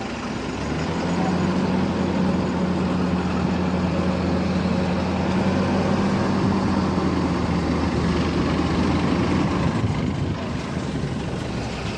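An engine running steadily close by: a level, even hum that grows louder about a second in and eases off after about eight seconds.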